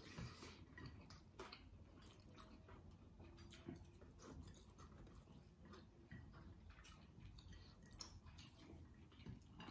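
Faint chewing of people eating rice and fried chicken with their fingers, with scattered soft mouth clicks throughout.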